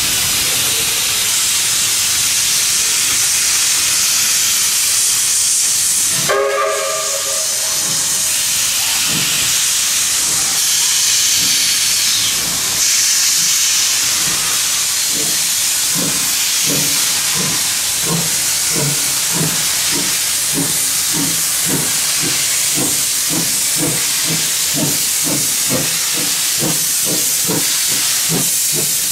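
BB18¼ class steam locomotive 1079 starting away with a train: a loud steady hiss of steam from its open cylinder cocks, a short whistle blast about six seconds in, then exhaust chuffs that grow stronger and quicker as it gathers speed.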